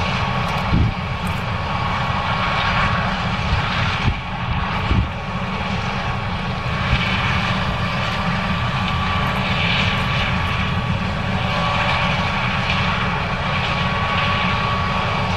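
John Deere 9610 combine's diesel engine and threshing machinery running steadily while harvesting corn, a dense low drone with a steady high whine over it. A few brief knocks in the first five seconds.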